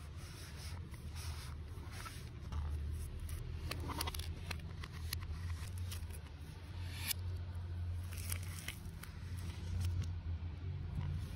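Hands rustling and scraping a cardboard smartphone box and its plastic wrap, with scattered crinkles and taps, the sharpest about four and seven seconds in. A steady low hum runs underneath.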